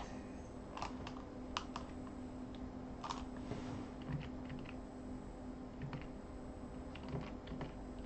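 A few faint, irregular clicks of computer keys being tapped, over a low steady hum.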